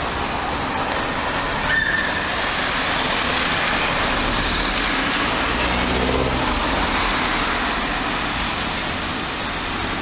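Steady street traffic noise, with a motor vehicle's engine passing about six seconds in.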